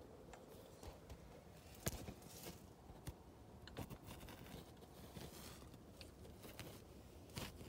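Near silence with a few faint, sharp clicks, the sharpest about two seconds in and another near the end.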